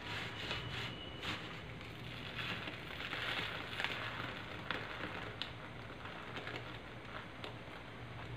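Fingertips pressing and crumbling powdered gym chalk on a flat surface: a continuous soft crunching and crackling with scattered sharp little cracks, busiest a few seconds in.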